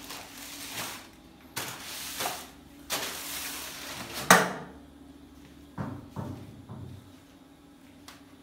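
Household objects being shifted and handled: rounds of scraping and rustling, a sharp knock about four seconds in, then two duller thumps a couple of seconds later.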